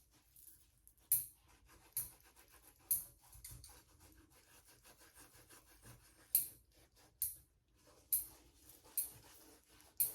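Bristles of a facial cleansing brush scrubbing across skin: a series of short, scratchy brushing strokes, roughly one a second, with a pause in the middle.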